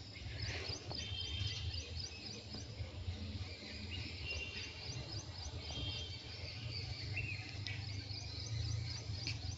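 Restaurant background noise: a steady low hum with faint, high chirping that repeats over it.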